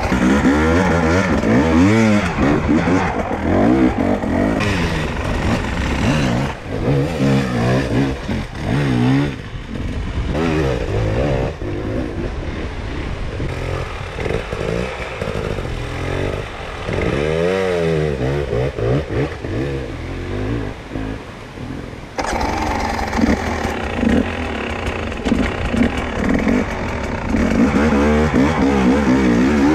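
Enduro dirt bike engine being revved up and down again and again while riding over rough forest ground, its pitch rising and falling with each burst of throttle.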